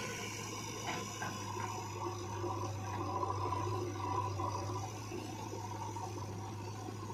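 JCB 3DX backhoe loader's diesel engine running steadily under work, with a couple of light knocks about a second in.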